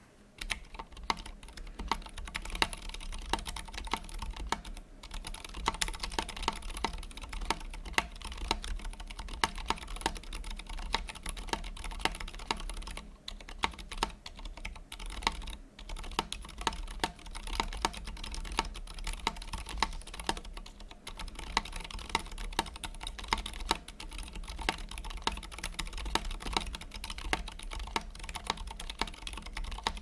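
Typing on a custom Austin R2 mechanical keyboard fitted with lubed 67 g Zilent silent tactile switches and lubed Durock stabilizers: a fast, irregular run of key presses starting about half a second in, with a few brief pauses.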